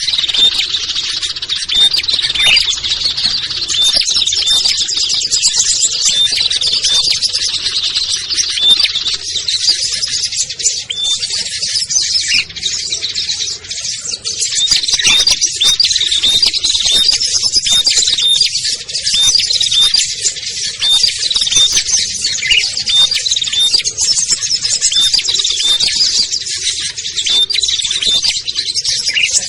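A dense, unbroken chorus of many small songbirds chirping and trilling at once, a mixed bird-trapping lure recording.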